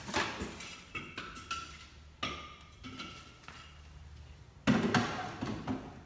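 Scattered knocks and clatter of things being handled at a refrigerator being cleaned out and restocked, with a few short ringing clinks and one louder knock about three-quarters of the way in.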